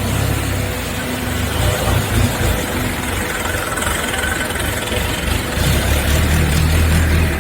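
Hydraulic baler running: a steady low motor-and-pump hum under a broad mechanical noise, swelling slightly louder over the last couple of seconds.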